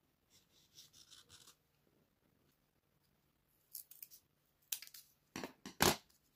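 Scissors cutting a small circle out of thin cardboard: several short, sharp snips in the second half, the loudest near the end. Before that, faint scratching of a marker drawing on the cardboard.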